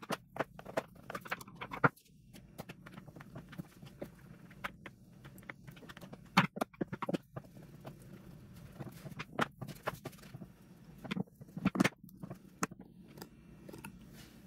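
Screws being driven by hand into a plastic jump-starter case with a screwdriver: irregular light clicks and knocks from the screwdriver and the plastic housing being handled.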